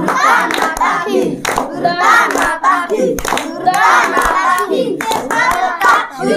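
A group of boys chanting Chhau dance drum syllables by mouth in unison, clapping their hands to keep the beat. This is the spoken drum pattern for the demon (Asura) character that they practise.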